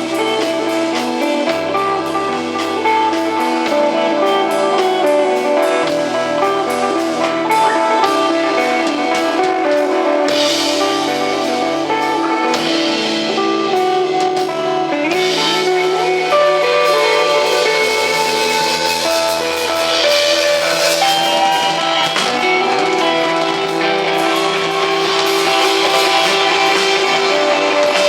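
Live rock band playing an instrumental passage: an electric guitar melody over sustained bass notes that change every second or two, with drums and cymbals. The cymbals grow louder about ten seconds in.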